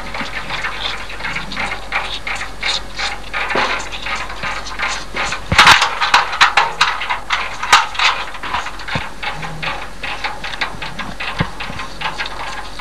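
Irregular clicking and rattling from calves sucking and butting at nursing bottles held in a rack on a metal pipe gate, with a cluster of louder sharp knocks about halfway through.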